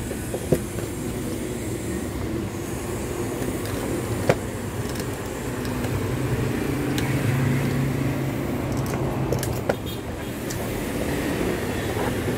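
A few sharp clicks of plastic clips and parts of a car's fuel pump assembly being worked loose by hand, over a steady low background hum.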